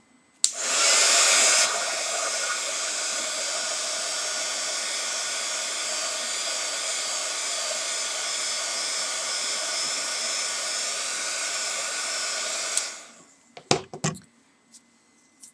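Embossing heat tool switched on about half a second in, blowing with a steady fan hiss and whine, louder for its first second, heating a Magic Stamp (Penscore) foam block to soften it for a new impression. It cuts off near the end, followed by a few short clicks.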